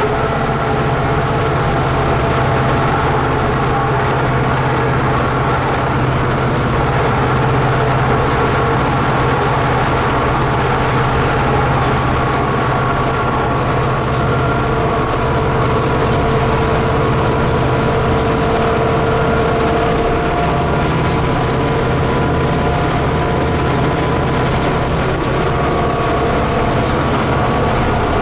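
Inside the cab of an EMD GT46MAC (WDG4D) diesel locomotive under way: its 16-cylinder 710 two-stroke turbocharged engine and running gear keep up a loud, steady drone, with a few steady whining tones over it.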